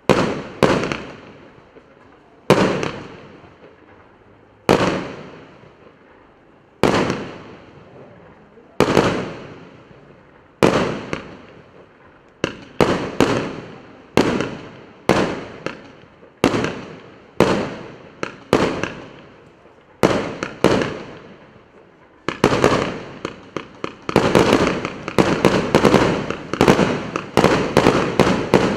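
A 100-shot, 1-inch (25 mm) firework cake, the Russkaya Pirotekhnika PC783, firing its shots in sequence, each a sharp report that fades out over a second or so. At first the shots come about every two seconds, then about one a second, and in the last several seconds a rapid run of overlapping reports.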